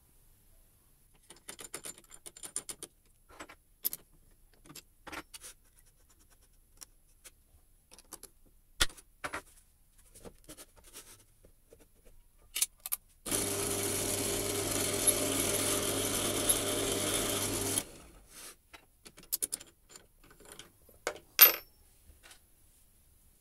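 Scattered small clicks and metal handling knocks, then a bench drill press motor switched on, running steadily for about four and a half seconds and stopping, to drill a small plastic gear centred in a drill-chuck jig. A sharp loud clack comes near the end.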